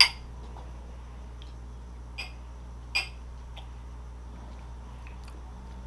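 A drinking glass tapped with one sharp knock at the start, then two fainter clicks of glassware about two and three seconds in, over a low steady hum.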